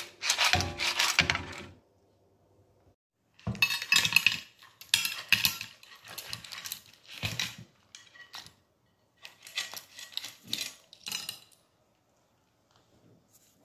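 A serving spoon scraping and clinking in a frying pan as seafood pasta with clams and mussels in their shells is stirred and spooned onto a plate. It comes in irregular clattering bursts, with a short pause about two seconds in, and stops about two seconds before the end.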